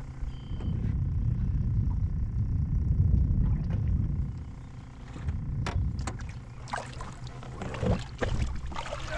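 Wind rumbling on the microphone, strongest in the first few seconds, with a few sharp clicks and knocks in the second half.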